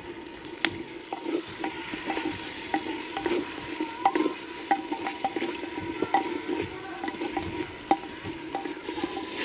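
A wooden spatula stirs and scrapes a masala of onion, garlic, tomato and spices around a clay handi, with irregular scrapes and knocks several times a second over a steady sizzle. The masala is frying down with a splash of added water.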